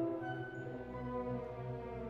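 Background music: a slow orchestral piece with long held notes.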